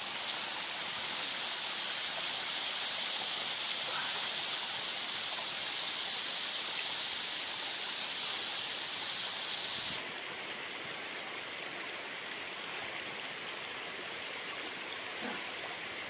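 Rushing water of a forest stream and waterfall: a steady hiss that drops slightly in level, abruptly, about ten seconds in.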